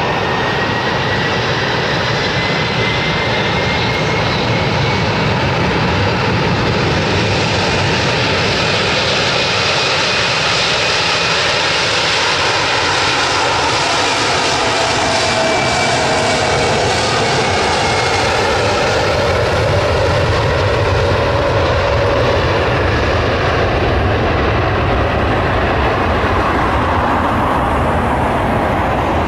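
Airbus A300 freighter's twin turbofan engines at high power during the takeoff roll: a loud, steady rush of jet noise with a faint whine that rises slightly over the first several seconds.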